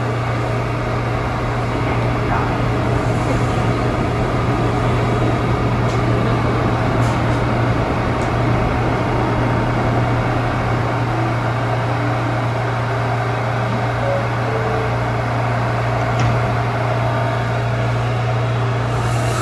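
New York City subway train running: a loud, steady rumble with a constant low hum underneath.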